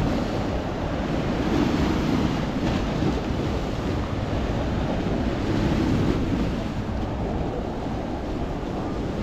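Sea waves breaking and washing up a stepped concrete sea wall, a steady surf noise, with wind blowing on the microphone.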